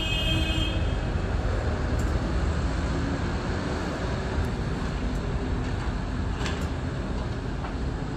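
Steady low rumble of outdoor city background noise, with a brief high-pitched squeal in the first second.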